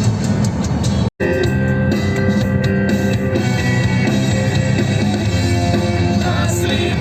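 Rock music with electric guitar and drums, cutting out for an instant about a second in.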